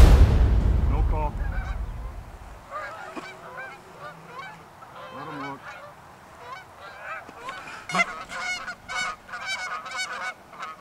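Canada geese honking as a flock circles in, the calls coming thicker and louder over the last few seconds. The tail of a music track fades out at the start.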